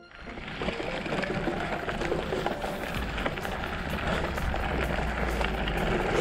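Gravel bike rolling fast over a forest dirt-and-gravel track, heard from a camera mounted on the bike: a continuous crunch and rattle of the tyres on the loose surface. A low rumble joins about three seconds in.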